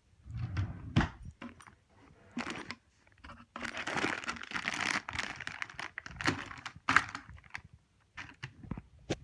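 Rummaging through a wooden dresser drawer: clothes and objects rustling and being shifted. A dense stretch of rustling runs through the middle, and sharp knocks come about a second in, near seven seconds and again near the end.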